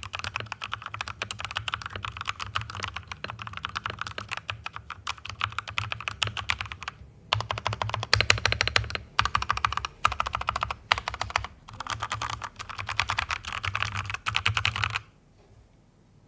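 Fast typing on an NYK Nemesis Helens mechanical keyboard with Outemu Red linear switches lubed with Krytox 205g0, a dense run of key clacks with a few short pauses. It stops about a second before the end.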